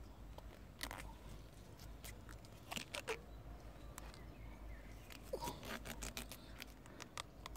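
Plastic grafting tape being stretched and wound around a cherry bud graft, giving faint scattered crinkles and clicks with a couple of brief squeaks about three and five and a half seconds in.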